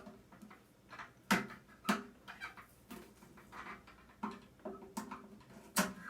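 Sharp clicks and snaps of a tool prying thin tin retaining clips off a microwave's plastic control-panel face, a handful of separate snaps spread irregularly, the loudest about a second and a half and two seconds in and near the end.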